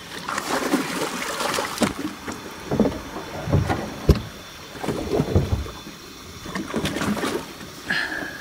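Cobia (ling) thrashing and splashing at the surface beside a small aluminium boat as it is held to be revived before release, with water slapping at the hull in irregular bursts and a few sharp knocks, the clearest about four seconds in.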